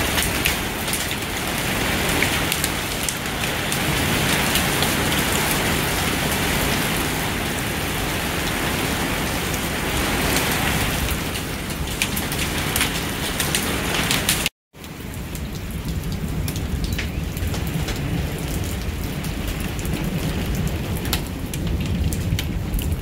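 Hailstorm with heavy rain: a steady rush of falling rain shot through with many sharp ticks and knocks of hailstones landing. About two-thirds of the way through the sound drops out for a moment, and afterwards the rush is somewhat softer.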